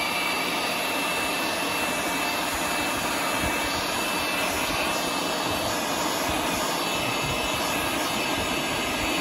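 Electric leaf blower running steadily: a constant rush of air with a faint, high motor whine.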